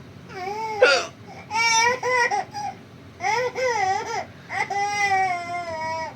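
Baby vocalizing in four drawn-out, high-pitched wavering squeals, the last a long one falling in pitch near the end.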